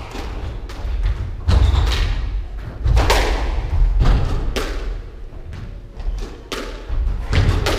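Squash rally: the ball smacks off rackets and off the court walls in sharp, irregular hits about a second apart, each with a short echo in the enclosed court.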